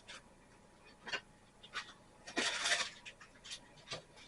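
Scattered light clicks and knocks of tools and small metal parts being handled, with a louder rustling scrape lasting about half a second a little past the middle.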